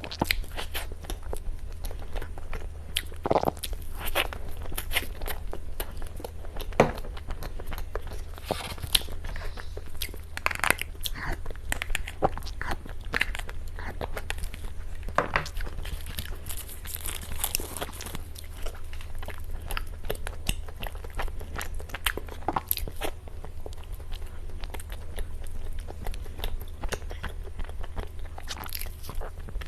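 Close-miked eating sounds: cake being bitten and chewed, with many short crisp clicks and crunches over a steady low hum.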